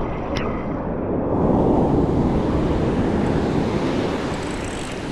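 Ocean surf breaking and washing ashore, with wind buffeting the microphone. The wash swells about a second and a half in, then eases.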